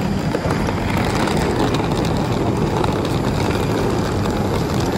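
Steady, loud noise of aircraft running on an airport apron.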